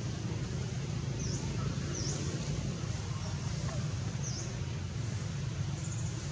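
Outdoor background: a steady low hum, like a distant engine or traffic, under four short, high chirps that each dip and rise in pitch, from a small bird.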